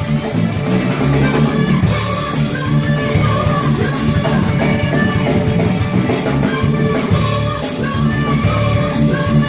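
Live rock band playing: drum kit and electric guitar, with women singing into microphones.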